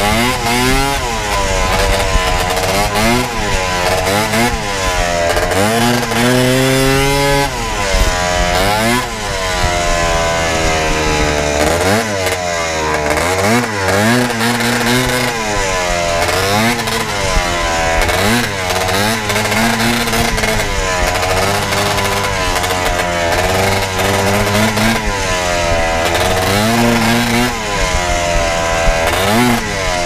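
Two-stroke snowmobile engine under way, revving up and down over and over, its pitch rising and falling every second or two as the throttle is worked.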